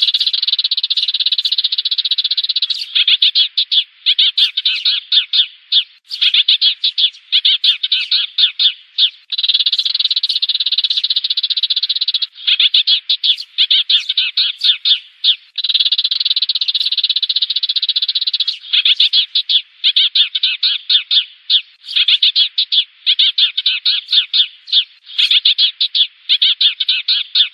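Sparrows chirping in a dense, continuous chatter. Stretches of thick calling alternate with runs of rapid separate chirps, several a second. This is a recorded sparrow call used as a lure for trapping sparrows.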